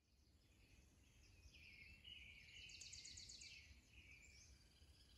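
Faint wild birdsong: several short, high warbled phrases and a quick trill of about ten notes a second near the middle, over faint low background noise.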